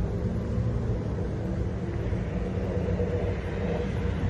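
Steady low hum of an idling engine, even throughout with no clear events.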